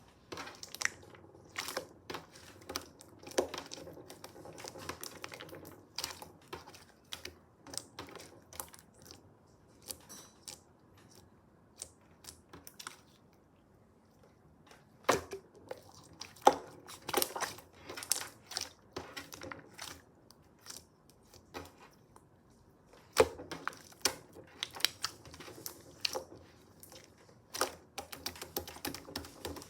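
Slime being squeezed and poked by hand, giving irregular sharp clicks and pops with soft crackling between them. The clicking thins out for a couple of seconds about halfway through.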